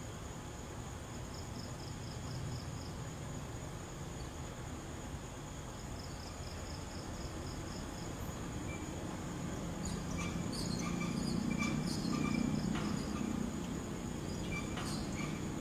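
Night insects: crickets giving trains of rapid high chirps over a steady high insect drone. From about two-thirds of the way in, scattered clicks and a low hum join in.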